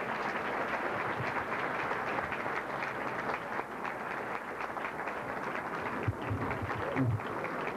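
Audience applauding, the clapping thinning out toward the end.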